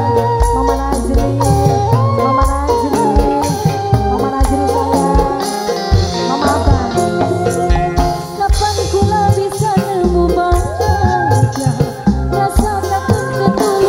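Live dangdut band music: a pitched melody over a heavy, steady beat of drums and dense percussion hits.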